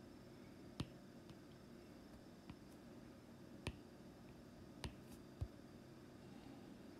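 Faint, separate taps of a stylus on an iPad's glass screen while writing, about five clicks a second or so apart, one of them a duller knock, over quiet room tone.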